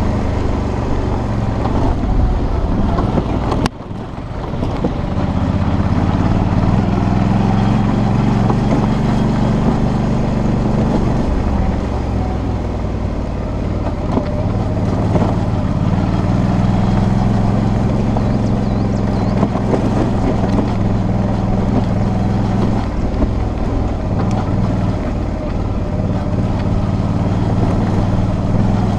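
Suzuki V-Strom 650's 645 cc V-twin engine running on the move, its revs rising and falling, with wind noise over the microphone. The sound dips briefly about four seconds in.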